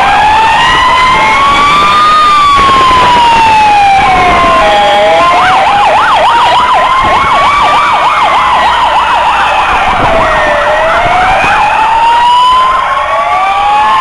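Fire engine sirens sounding together and loud: a slow wail rising and falling about every five seconds, joined from about five seconds in to about eleven seconds by a faster yelp warbling several times a second.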